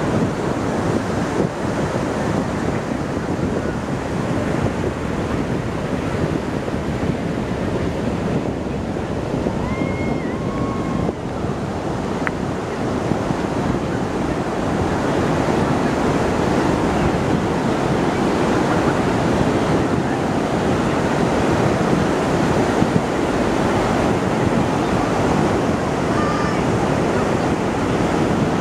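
Fireworks display heard from among the crowd: bursts and crackle merging into a steady mass of noise, with wind on the microphone.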